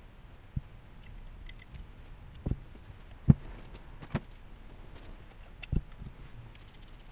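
Knocks and light clicks of a JATCO JR403E automatic transmission valve body and its small metal parts being handled and set down on a workbench: about five separate knocks, the loudest about three seconds in.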